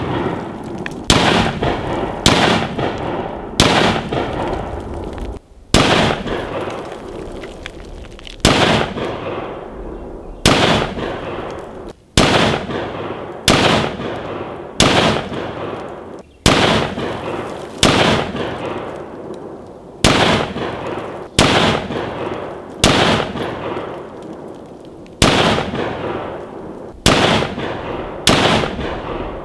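Rifle fired in a string of single shots, roughly one a second with a few longer pauses, each crack trailing off in echo.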